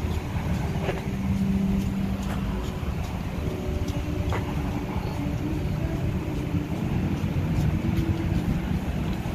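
City street traffic: cars driving past with the steady low noise of engines and tyres.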